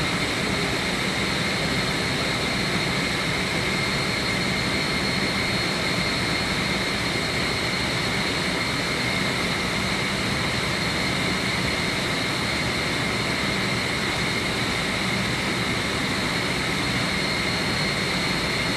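Steady machinery noise from a chiller plant room: an even, unbroken rush with a constant high whine over it.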